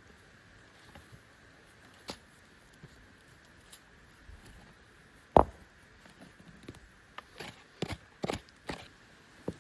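Scattered sharp clicks and knocks over a faint steady background hiss. One loud knock comes about halfway through, and a quick run of several more comes near the end.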